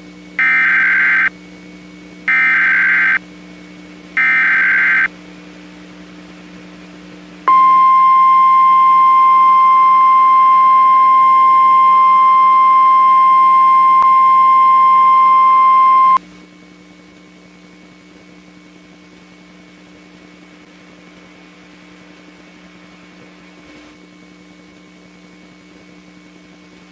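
NOAA Weather Radio emergency alert: three short bursts of warbling SAME digital header data, then the steady high warning alarm tone for about nine seconds, which cuts off abruptly. No voice message follows, only a low steady hum and hiss of dead air: the alert message failed to play.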